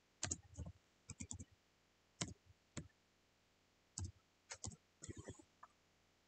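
Computer keyboard keys clicking: about fifteen sharp key presses in short irregular runs with pauses between.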